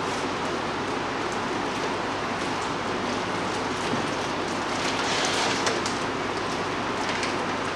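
Milk poured from a plastic pouch into a plastic tub, splashing most around five to six seconds in, over a steady hiss of background noise.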